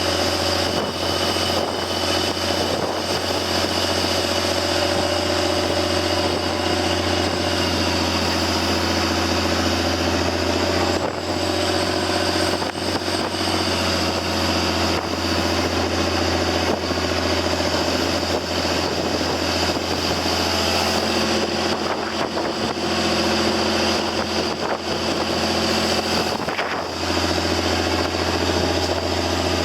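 Boat engine running steadily under way, a constant low hum with noise from wind and water over it.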